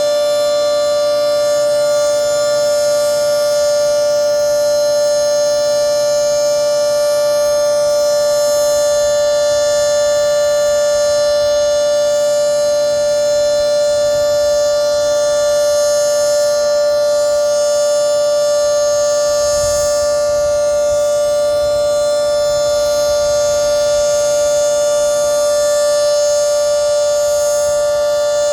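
Federal Signal 2T22B two-tone warning siren, 10/12-port with its top intake blocked, sounding its steady alert signal: a loud two-tone chord held at a constant pitch.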